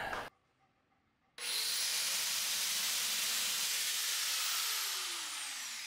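Angle grinder cutting into the wooden screen door panel, starting about a second and a half in with a steady hiss. Over the last two seconds the sound fades and a whine falls in pitch as the disc winds down.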